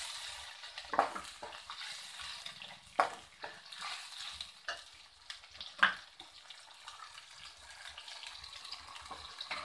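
Onion-tomato paste sizzling in hot oil in a stainless steel kadai while a steel slotted spatula stirs it. The spatula clinks sharply against the pan about a second in, at three seconds and near six seconds.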